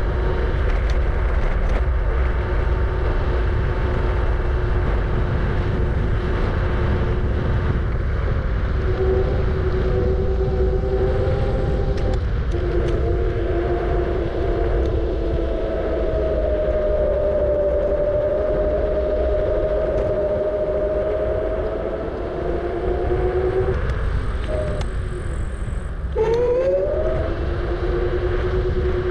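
Kugoo G-Booster electric scooter's hub motors whining while riding, the whine's pitch drifting with speed. It breaks off briefly twice and then rises sharply near the end as the scooter speeds up, over steady wind rumble on the microphone.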